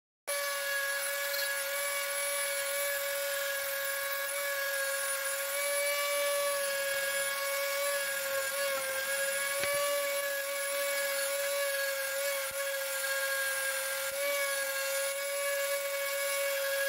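Handheld rotary tool with a small burr bit carving into a piece of wood: a steady high whine that dips slightly in pitch a few times under load.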